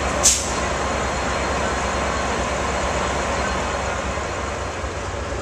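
Amtrak F59PHI diesel locomotive idling at a station platform, a steady rumbling hum. A brief sharp hiss cuts in about a quarter second in.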